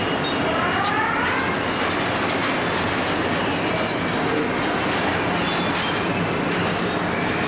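Car assembly plant floor noise: a steady mechanical din with scattered clanks and clicks, and a short rising whine in several tones about half a second to a second and a half in.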